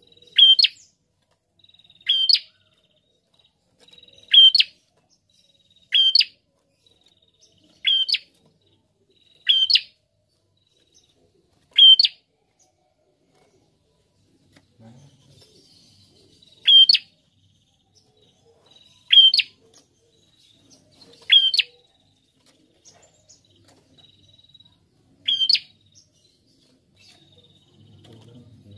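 Caged prenjak giving short, sharp, high calls about every two seconds, eleven in all, with a pause of about five seconds after the seventh.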